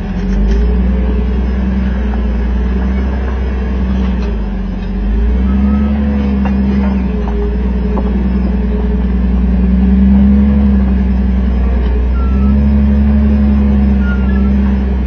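An off-road vehicle's engine working at crawling speed up a rocky trail climb, its pitch rising and falling with short bursts of throttle.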